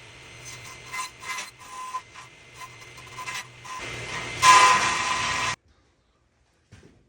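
Table saw with a sled making repeated short cuts into a wooden block as the piece is turned between passes, an uneven clatter with a recurring whine. A louder cut comes about four and a half seconds in, and the sound cuts off suddenly about a second later.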